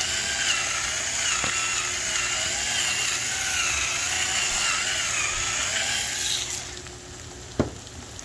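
Electric pepper grinder running, a steady, slightly wavering whine as it grinds peppercorns, stopping about six and a half seconds in. A single knock about a second later.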